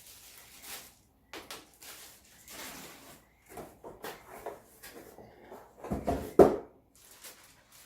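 Cardboard box and plastic packaging being handled and slid about, rustling and scraping, with a louder scrape and thump about six seconds in.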